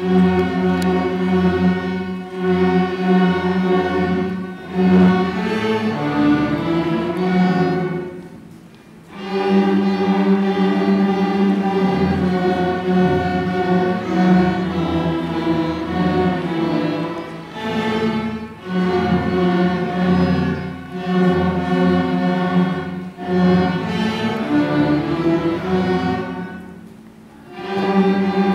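Sixth-grade student string orchestra of violins, cellos and double basses playing a piece together. It enters all at once, after a quiet moment, and goes in phrases with short breaks about nine seconds in and again near the end.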